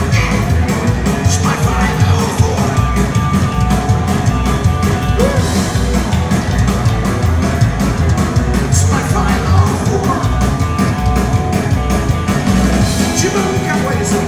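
Live rockabilly band playing loud: electric guitar, upright bass and drum kit together, with a few vocal shouts.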